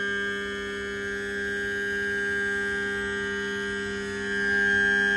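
Mercury Verado outboard's electric-hydraulic power trim and tilt pump running as it tilts the motor all the way up: a steady hum that gets a little louder near the end.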